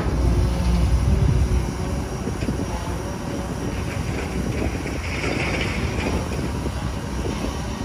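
Kobelco SK250 hydraulic excavator's diesel engine running steadily as the bucket digs into soil, a little louder for the first second and a half.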